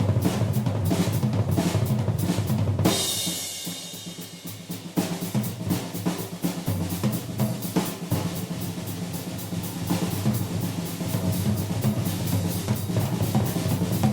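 Vintage 1970 Ludwig three-ply drum kit played hard and fast, with rolls across the drums and bass drum. About three seconds in a Paiste Giant Beat cymbal crash rings out while the drums drop back, and fast playing picks up again around five seconds in.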